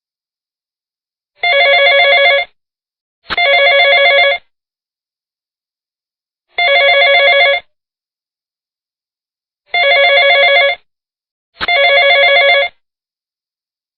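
Telephone ringing: five rings of about a second each, every ring a fast-pulsing two-note trill. The first two come close together, then one on its own, then two more close together, with silence between.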